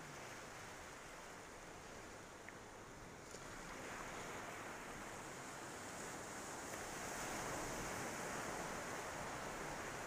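Sea waves washing onto a beach: a steady rush of surf that swells louder from about four seconds in as a wave rolls up.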